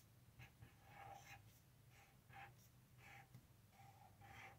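Faint strokes of a felt-tip marker on paper as letters are written, a series of short scratchy strokes about two a second.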